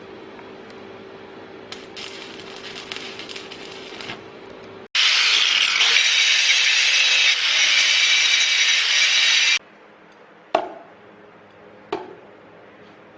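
A power tool grinding steel runs loud and steady for about four and a half seconds from about the middle, then cuts off abruptly. Before it there is a low steady hum, and after it two sharp metallic clanks about a second apart.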